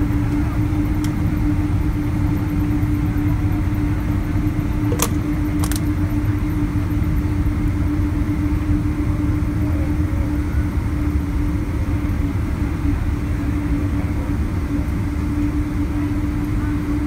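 Cabin noise aboard a Boeing 777-200: a steady, heavy rumble with a constant hum through it. Two short clicks sound about five seconds in, under a second apart.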